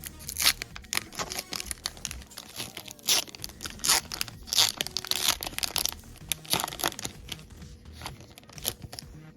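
Foil wrapper of a trading card booster pack being torn open and crinkled, in a string of sharp, irregular crackles.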